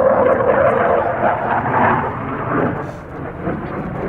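Jet noise from a Saab J35 Draken's single RM6 afterburning turbojet as the fighter flies its display, a loud rushing roar with a steady tone at the start that grows quieter after about two seconds.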